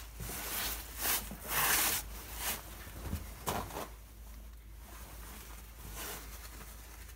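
Paper towel rustling as it is handled: a run of short crackly bursts in the first four seconds, loudest near the second second, and one weaker burst near the end.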